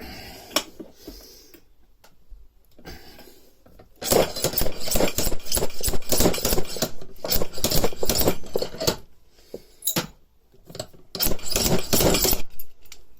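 Slide hammer weight on a bearing puller striking repeatedly, rapid metal-on-metal clanking in two long runs, about four seconds in and again near the end, as it jerks the roller bearing out of the mower gearbox housing.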